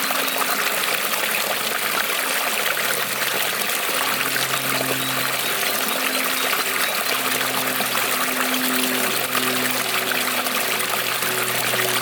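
Creek water rippling and trickling in a steady rush, with low hollow tones that come and go.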